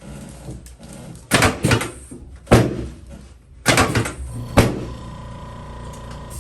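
Sharp knocks and thumps from a chiropractic treatment table during a face-down hip adjustment, several hard strikes in a few seconds, the loudest about two and a half seconds in.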